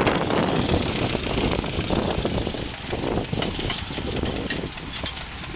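Zetor tractor engine idling, growing gradually quieter.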